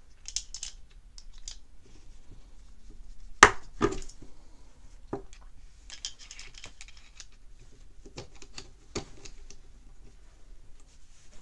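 Steel screwdriver tips scraping and clicking against a spinning reel's gear and stuck bearing as they pry at it. There is a sharper click about three and a half seconds in, and a few lighter clicks after it.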